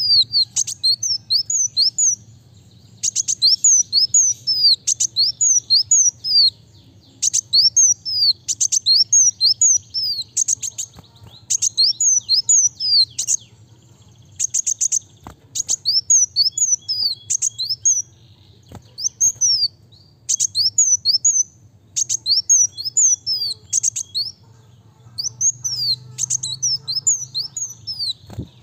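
Kolibri wulung sunbird singing fast and without let-up: rapid strings of high, sharp, down-slurred notes, broken every few seconds by brief pauses.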